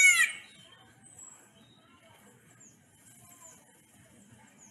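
An Indian peacock's loud, arching call cuts off about half a second in. Faint, short, high bird chirps follow.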